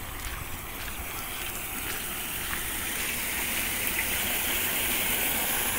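Snowmelt water running along a street gutter and pouring into a storm-drain grate, growing louder toward the end.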